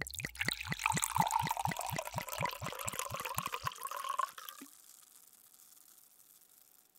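Wine glugging from a bottle into a glass, about five glugs a second, with a slowly rising tone as the glass fills; the pour stops about four seconds in.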